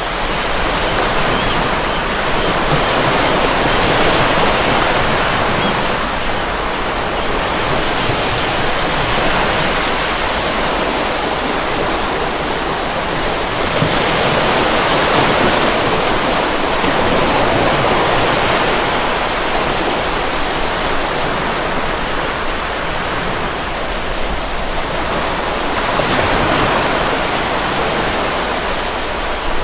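Rough ocean surf in a storm: a continuous rushing of breaking waves that swells and eases every few seconds, with wind mixed in.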